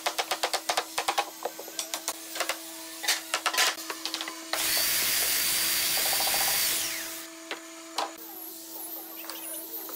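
Hammer tapping a wooden frame, about five quick blows a second, thinning to scattered knocks. About four and a half seconds in, a handheld power tool runs on the wooden frame with a steady high whine for about two and a half seconds, then winds down; a couple of single knocks follow.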